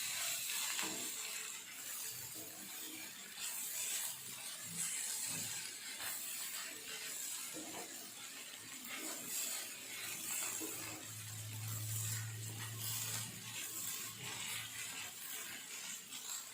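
Spatula stirring and scraping torn parotta pieces through egg masala in a hot pan, with a steady sizzle and frequent small scrapes and clinks. A low hum sounds for about two seconds a little past the middle.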